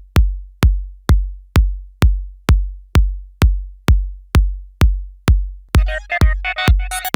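Electronic pop song intro: a deep drum-machine kick drum on every beat, about two hits a second, each with a long low boom. About six seconds in, other electronic instruments and percussion join over the kick.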